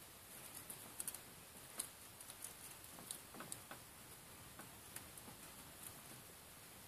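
Faint, irregular light clicks and ticks, a few each second, like baby mice stirring against dry hay bedding, over near-silent room tone.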